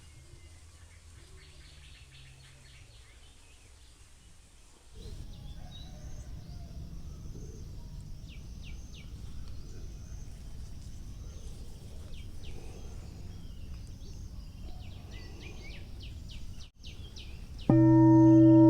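Recorded nature ambience of birds chirping over a soft, steady background hiss that becomes louder about five seconds in. Near the end a crystal singing bowl comes in loudly with a steady, ringing chord of several tones.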